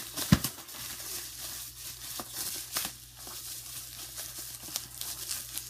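Bubble wrap crinkling and rustling as it is handled, in irregular crackles, with a thump just after the start.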